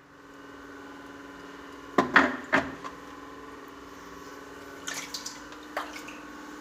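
Floodwater splashing and dripping in short bursts, with a few sharp splashes about two seconds in and again near the five-second mark, over a faint steady hum.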